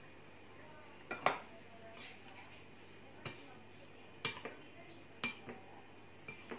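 Metal fork and whisk clinking against a plate of beaten egg: irregular sharp clinks, several in pairs, about one a second, the loudest a little over a second in.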